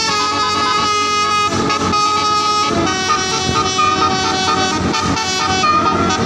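Indonesian tour-bus telolet horn, a multi-tone electric-valve air horn, playing a tune: several pitches at once, stepping between short and held notes.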